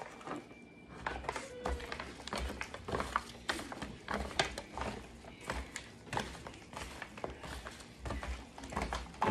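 A gloved hand tossing seasoned raw pork rib tips in a disposable aluminium foil pan: irregular crinkling and crackling of the thin foil, with the soft sounds of the meat being moved around.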